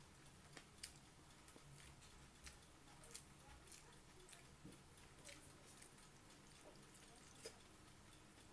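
Faint eating sounds: chewing with small, irregular wet mouth clicks, over quiet room tone.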